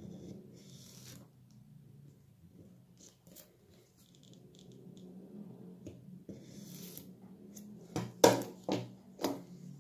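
Small Swiss Army knife blade scraping and slitting the seal on a cardboard box in a few short scratchy strokes, then about four sharp clicks and knocks near the end.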